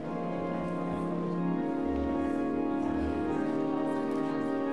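Church organ playing slow, held chords, with deep bass pedal notes sounding underneath.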